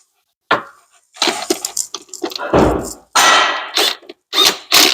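Metal hand tools working on engine bolts: a sharp click about half a second in, then an irregular run of knocks, clinks and scrapes.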